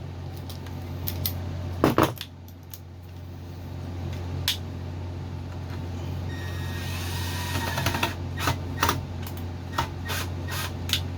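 Scattered sharp clicks and light taps of hand tools and small parts being fitted on a Mantis mini tiller's engine, with a stretch of rubbing about six to eight seconds in, over a steady low hum.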